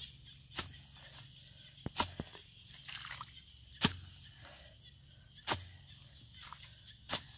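Hoe blade chopping into a wet, grassy mud bank: about six sharp strikes, roughly one every second and a half, the loudest about four seconds in.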